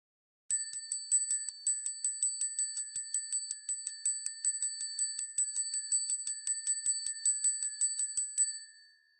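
Small brass bell rung rapidly and continuously, about four or five strikes a second, each strike over a steady bright ringing tone. The ringing stops near the end and the bell's tone fades out.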